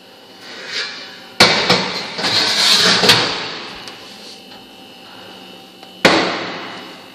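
Metal oven baking tray slid along the oven's runners, clattering and scraping for a couple of seconds from about a second and a half in. Near the end the oven door shuts with one sharp bang.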